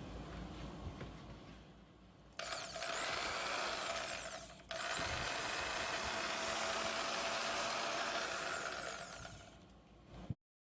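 Harbor Freight portable bandsaw's brushed motor, fitted with new brushes, switched on and running steadily at speed. It cuts out briefly a couple of seconds after starting and comes straight back on, then fades and stops near the end.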